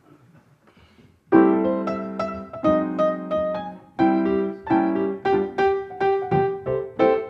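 Solo grand piano, played live. After a quiet second or so it comes in with a loud chord, then plays a steady rhythm of chords under a melody.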